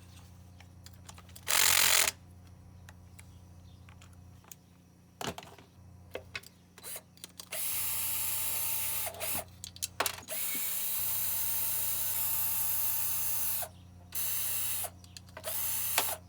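Cordless power tool running in bursts, backing out bolts on a small lawnmower engine: a short loud burst near the start, then a long steady run with a steady whine that stops and restarts several times.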